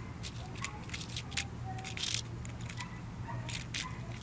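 Scattered small clicks and gritty scrapes as a Thomas & Friends Take-n-Play diecast metal Stephen engine is handled and rolled on a rough brick.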